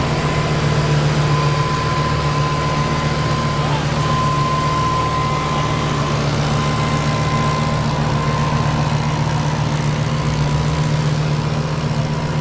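Lamborghini Huracán LP610-4's 5.2-litre V10 idling steadily while the car rolls slowly at walking pace, with no revving.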